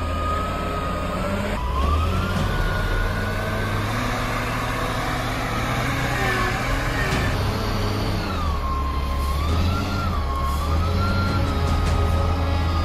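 Diesel engine of a heavy wheel loader working under load and revving up and down, with a high whine that rises and falls along with it.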